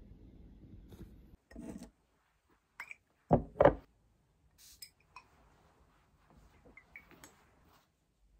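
Handling noises on a hard tabletop: two sharp knocks about three and a half seconds in, with a few softer taps and clicks around them.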